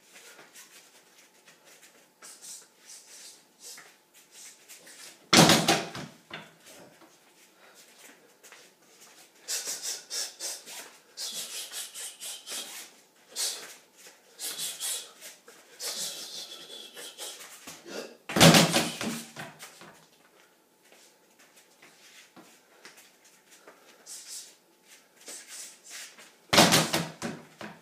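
Bare feet squeaking and shuffling on a gym floor during shadowboxing and spinning footwork, with a run of quick squeaks in the middle. Three heavy thuds land about five seconds in, about eighteen seconds in and near the end.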